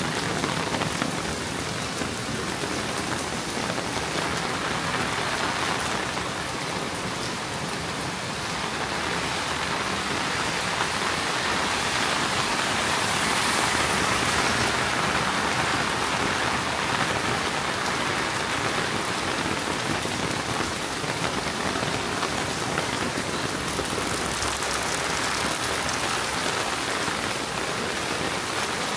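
Steady summer rain falling on the street, a dense even hiss that grows a little heavier about halfway through.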